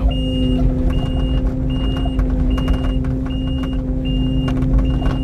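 Tri-axle dump truck's reversing alarm beeping about once a second as the truck backs up, over the steady hum of an engine running.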